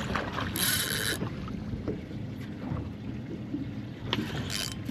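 On-deck sounds of a small fishing boat on the water: wind on the microphone, water against the hull and light knocks of gear. Two short hissing bursts stand out, one about half a second in and a briefer one near the end.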